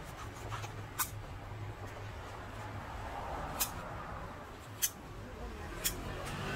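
Four sharp, separate small clicks over a steady low hum.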